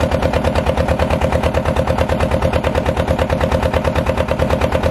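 Single-cylinder diesel engine of a small wooden phatphati fishing boat running steadily, with a loud, rapid, even putt-putt.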